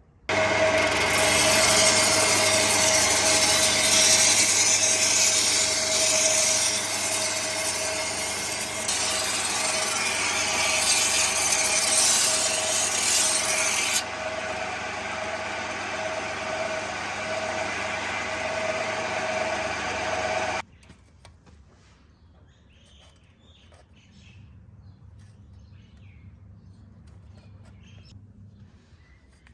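Electric power tool running steadily with a constant whine and a harsh hiss of metal or wood being worked. The hiss eases about halfway through, and the tool cuts off abruptly about 20 seconds in, leaving only faint handling sounds.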